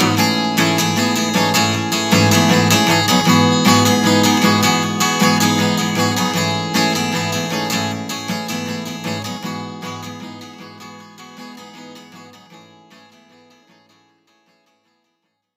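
Strummed acoustic guitar playing a song's closing chords, fading out over the second half until it dies away.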